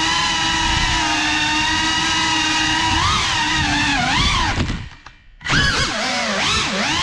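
Small FPV quadcopter's brushless motors and propellers whining at a steady pitch. About five seconds in the whine drops away almost to nothing as the throttle is cut, then comes back with quick rises and falls in pitch.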